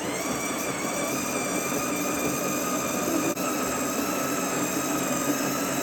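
Built-in burr grinder of a Ninja Luxe Café espresso machine running steadily, grinding coffee beans after its front button is pressed.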